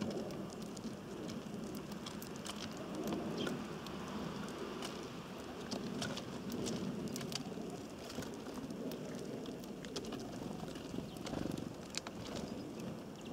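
Pigeon cooing in low, soft swells, against a patter of sharp ticks throughout.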